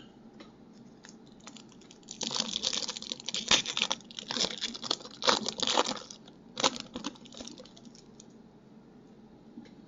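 Foil wrapper of a 2017 Donruss Optic baseball card pack being torn open and crinkled, with the cards inside handled, in a run of crackling from about two seconds in until about seven seconds in.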